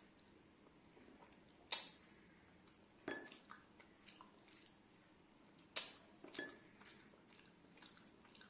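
Close-miked eating: a person chewing a mouthful of rice and curry, with about four sharp clicks and smaller ticks spread through.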